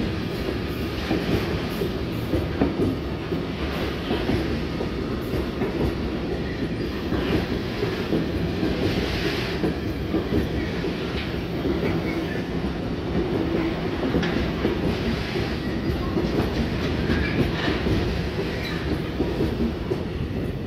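Freight train of tank wagons rolling past at close range: a steady noise of steel wheels on rail, with frequent small clicks and clacks from the wheels.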